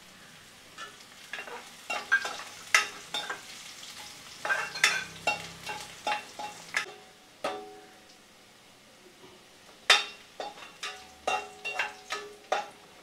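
Steel ladle and spoon clinking and scraping against a non-stick kadai while stirring a frying seasoning of onion, garlic, cumin and ginger in oil, the sharper knocks ringing briefly, with faint sizzling underneath. The loudest knock comes near the end.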